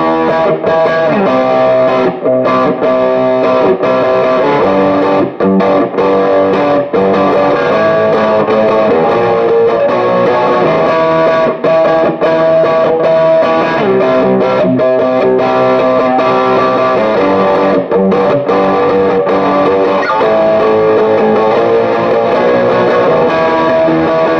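Electric guitar played through a Behringer GMX212 modeling combo amp with the gain up, giving a distorted, Marshall-style British tone. The playing runs on with only brief breaks between phrases.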